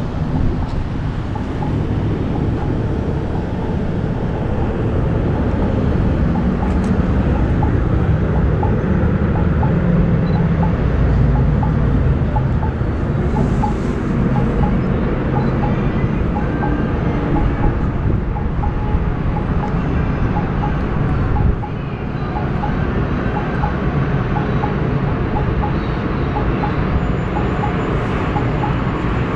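Steady low rumble of city street ambience with distant traffic.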